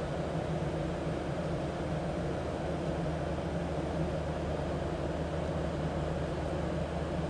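Airliner cabin noise in cruise flight: a steady deep drone of engines and rushing air, unchanging throughout.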